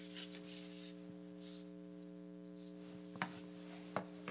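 Steady low electrical hum with faint rustling, and two short sharp clicks about three and four seconds in.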